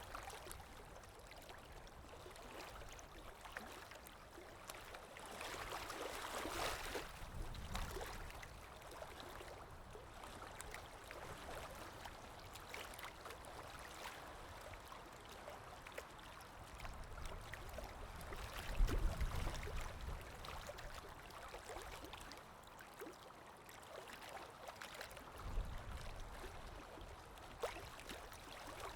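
Canaries bathing in a water dish: light splashing and fluttering in the water, with two low thumps in the second half.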